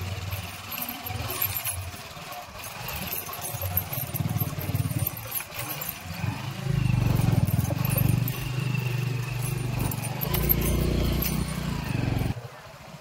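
Motorcycle engine running as the bike rides a rough dirt trail, with rattling and clatter over the bumps. It gets louder about seven seconds in and drops away sharply near the end.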